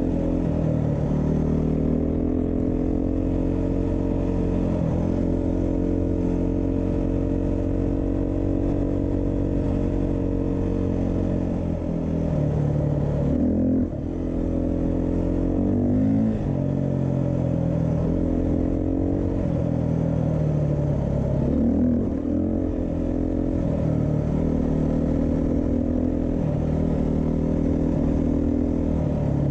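Beta 390 RR-S dual-sport motorcycle's single-cylinder four-stroke engine under way on a ride. Its pitch holds steady for stretches, then drops and climbs again several times as the rider backs off and gets back on the throttle.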